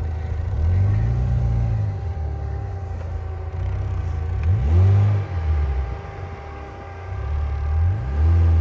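Lada Niva 4x4's 1.7-litre four-cylinder petrol engine revved in three bursts, each rising then falling in pitch, as the car works through deep snow.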